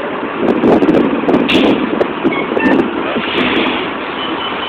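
City street traffic at a busy intersection: vehicles running past in a steady wash of noise, with faint short high chirps recurring every few seconds.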